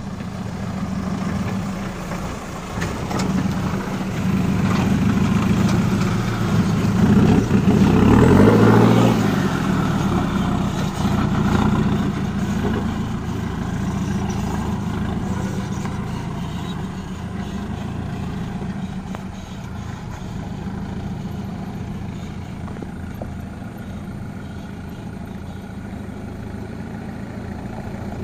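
Mahindra Thar 4x4's engine pulling under load as it climbs a rocky off-road slope. It revs up hardest about eight seconds in, then runs more steadily at lower revs.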